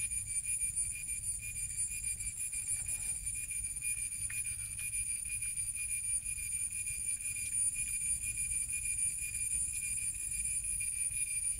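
Insect chorus: several steady high-pitched tones held without a break, over a low rumble.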